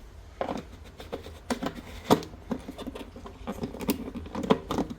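Light, irregular clicks and knocks, about a dozen in all, from hands working on a plastic garden hose reel during reassembly.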